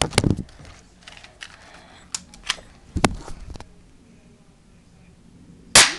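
Handling noise: a scatter of light clicks and knocks, then one loud, sharp snap near the end.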